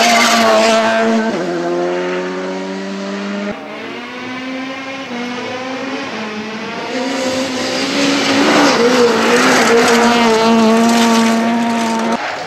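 Rally car engines at full effort on a stage: a VW Polo R5's turbocharged four-cylinder revving hard as it passes, its note dropping about a second in, then after a sudden cut an Opel Adam rally car's engine climbing and holding high revs as it slides across loose gravel.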